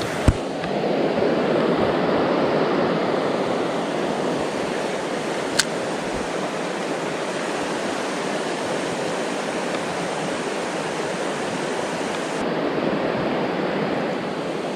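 Creek water rushing and splashing over rocks: a steady hiss of flowing water, with two brief sharp clicks, one just after the start and one about six seconds in.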